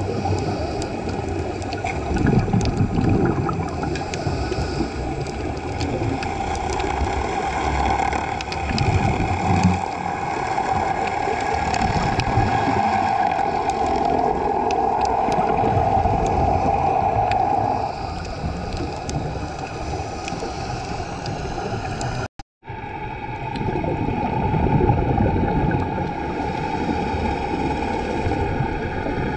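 Underwater sound through a GoPro housing: a steady motorboat-engine drone, with irregular low bubbling rumbles of a diver's breathing and scattered faint crackling clicks. The sound cuts out for a moment about two-thirds of the way through.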